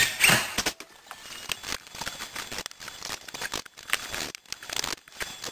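Handling noise from hand work at a baseboard: a brief burst of squeaky scraping right at the start, then scattered clicks, taps and rustles. No drill motor runs.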